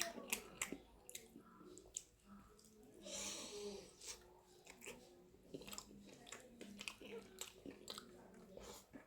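A person chewing and eating chicken and rice, with many small wet mouth clicks and smacks, and a brief hiss about three seconds in.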